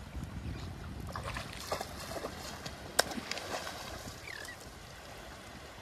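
Shallow water sloshing and splashing around a person wading with a wire dip net, with a run of small splashes in the middle and one sharp click about three seconds in as the net is swung through the water.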